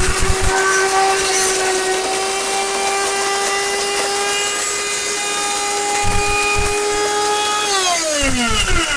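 Electric juicer-blender motor running at a steady high-pitched whine while grinding a glass bottle to powder, with a few low knocks in the jar. About three-quarters of the way through it is switched off and its whine falls steadily as it spins down.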